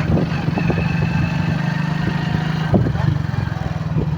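Motorcycle engine running steadily at an even, rapid beat while the bike is ridden, with a few short knocks.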